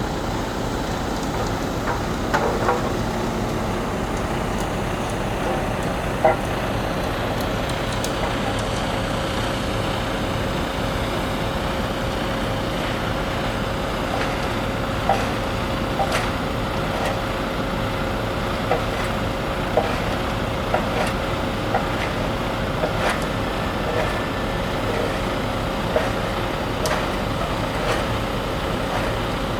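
A vehicle engine running steadily with a constant hum, with scattered light clicks and knocks over it, the sharpest about six seconds in.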